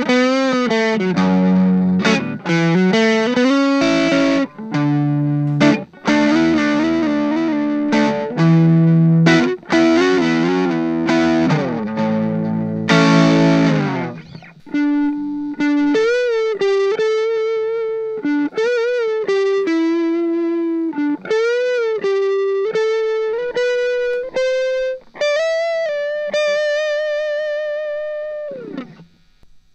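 Electric guitar played through an M-vave Mini-EFX pedal on its second setting, a Tube Screamer-style overdrive. For about the first half it plays chords and riffs, then single-note lead lines with bends and vibrato, ending on a long held note that stops shortly before the end.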